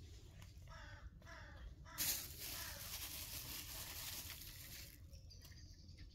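A crow cawing faintly twice, then about three seconds of rustling noise.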